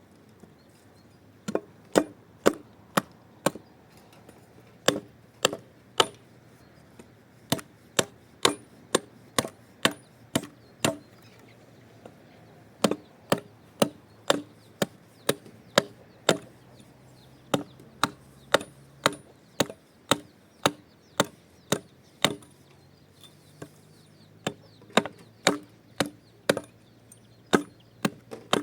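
Repeated chopping strokes into wood, about two a second in runs separated by short pauses.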